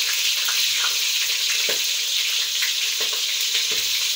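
Chicken pieces frying in a shallow layer of hot oil in a pan: a steady sizzling hiss with a few sharp pops and spatters.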